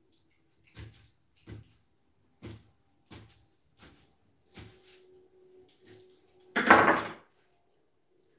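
Kitchen knife cutting pineapple into cubes on a plastic cutting board: a short knock about every two-thirds of a second, then one much louder, longer knock about two-thirds of the way through.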